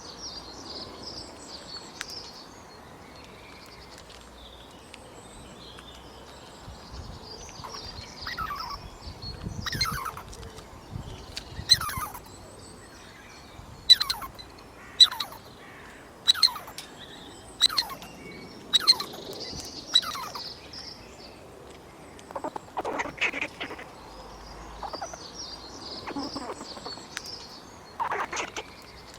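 A squirrel calling in a run of short calls, each sweeping sharply down in pitch, about one a second through the middle, with faint bird chirps behind.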